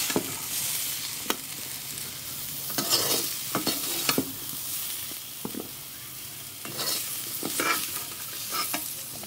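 Jackfruit pieces sizzling as they fry in hot mustard oil in a kadhai over high heat. Short scrapes and knocks of stirring come every second or so.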